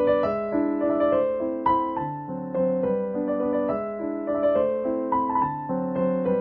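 Background piano music: a slow melody of held notes over chords.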